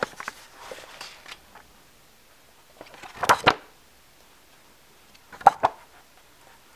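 Pages of a large illustrated book being turned by hand: light paper-handling rustles at the start, a rushing flap of a page about three seconds in, and two quick papery slaps about five and a half seconds in.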